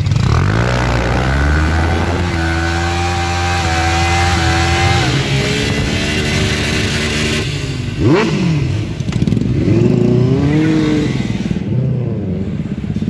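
Motorcycle engines revving and pulling away: the engine note rises over the first couple of seconds and holds steady, then dips and climbs sharply a few times later on as the bikes work through the gears.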